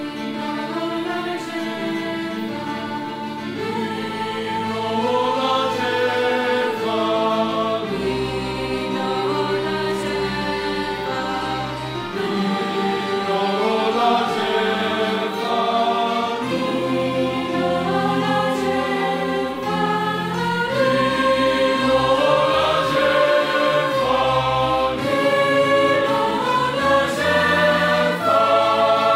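Mixed youth choir singing a hymn in parts, with low sustained notes underneath, growing louder toward the end.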